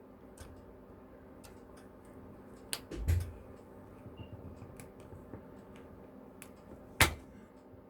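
Small screwdriver prying at the plastic case of a Ring doorbell bypass module: scattered faint clicks and scrapes, a dull knock about three seconds in, and one sharp click near the end.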